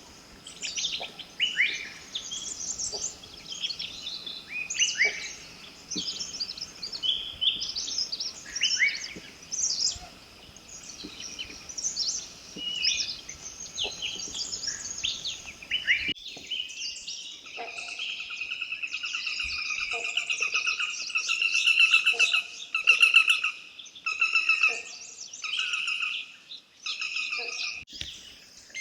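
Several forest birds chirping and whistling over each other, with a faint steady thin tone underneath. About halfway through the background drops away abruptly, and a bird gives rapid trilled phrases, over and over.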